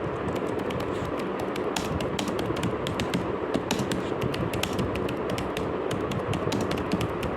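Many rapid, irregular clicks and taps over a steady rushing noise.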